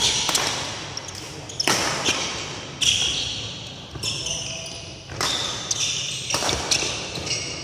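Badminton doubles rally: rackets striking the shuttlecock about once a second, each hit echoing in a large hall, with short high shoe squeaks on the court floor between hits.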